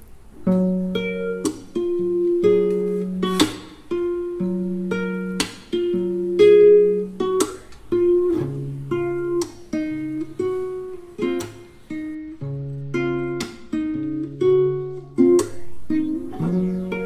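Background music: strummed chords on a plucked string instrument like a guitar, with a stroke about every second and the chords changing as it goes.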